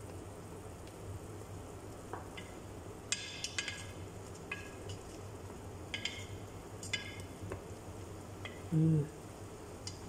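A spatula stirs chicken in a large aluminium pot, knocking and scraping against the metal with about a dozen sharp, briefly ringing clinks over a steady low hum. About nine seconds in there is a short, louder low-pitched sound.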